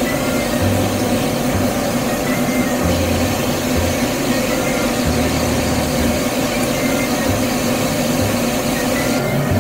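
Steady rushing hiss of a spray gun spraying paint inside a ventilated paint booth, over a constant hum.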